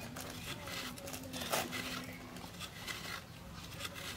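Knife blade scraping fresh coconut flesh out of a half shell, a run of short rough scrapes repeated every half second or so.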